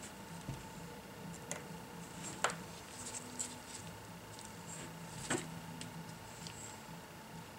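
A few sharp little clicks and light ticks of a precision screwdriver and a tiny screw against the metal parts of an opened iPad mini, the sharpest about two and a half seconds in and another about five seconds in, over a faint steady hum.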